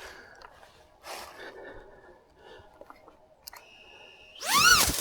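A short steady electronic beep, then the brushless motors of a 3.5-inch FPV freestyle drone spin up and back down in a quick throttle blip, a whine that rises and falls in pitch. Faint rustling is heard before them.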